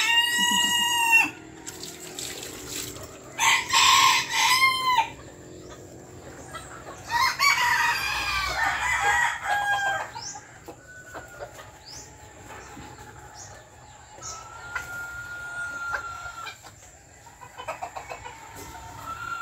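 Bantam roosters crowing, three long loud crows in the first half, followed by quieter clucks and short calls from the flock.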